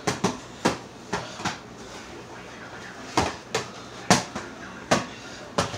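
A ball bouncing on a hard floor: about nine sharp thumps at uneven spacing, four in the first second and a half, then a pause of about two seconds, then five more.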